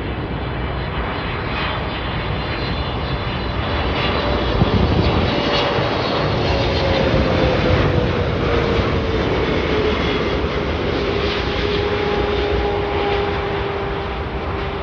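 Boeing 777-300ER's twin GE90 turbofan engines running as the airliner comes in to land past the listener. The engine noise swells to its loudest near the middle, and its whine falls in pitch as the jet goes by.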